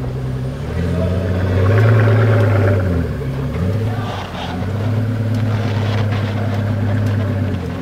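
Pagani Huayra's twin-turbo AMG V12 running at low revs under light throttle: its note rises about a second in, dips briefly around three seconds, then holds higher until it falls back near the end.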